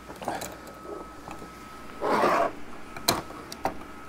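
Metal parts and hand tools clicking and knocking on a workbench as a transmission valve body is taken apart, with a short scraping rasp about two seconds in.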